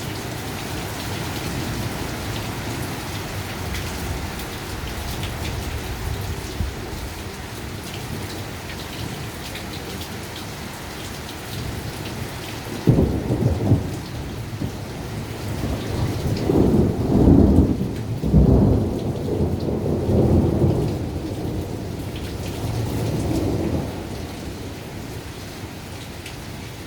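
Heavy rain falling steadily. About halfway through there is a sudden thunderclap, then several seconds of rolling thunder that swells and fades.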